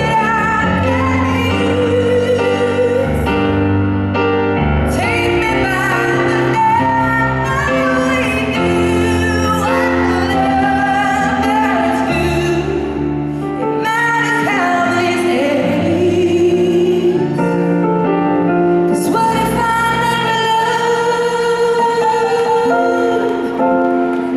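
A woman singing a song over instrumental accompaniment, with no break in the music.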